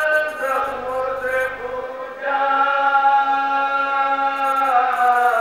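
Male voice chanting a marsiya, the Urdu elegy for Imam Husain, in long held notes with a short break about two seconds in.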